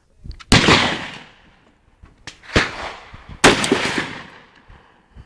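Rifle gunshots on an open range: three loud cracks, about two seconds and then one second apart, each followed by a long fading echo, with a few fainter distant shots in between.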